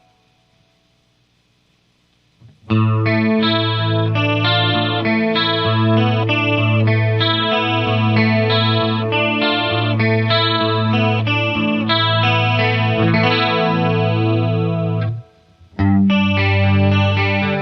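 Electric guitar, a Les Paul Custom, played through the Boss ME-50's chorus effect into two miked Marshall DSL amps in stereo. After about two and a half seconds of near silence the playing starts, stops briefly about 15 seconds in, then starts again.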